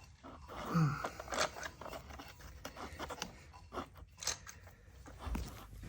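Hand tap being turned in a stud hole in a VW engine case, giving irregular scraping clicks as it cuts threads.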